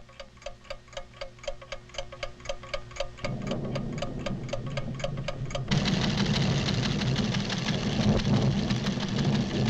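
Cartoon sound effect of a measuring instrument ticking steadily, about four ticks a second, with a short beep on each tick. About three seconds in a low rumble of an earth tremor joins, and about six seconds in it swells louder and drowns out the ticking.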